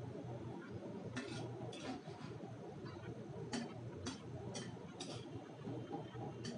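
Irregular light clicks, about eight scattered over a few seconds, over a steady low hum.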